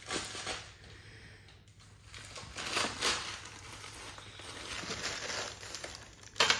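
Handling noises: crinkling and rustling in short bursts, with one sharp knock near the end.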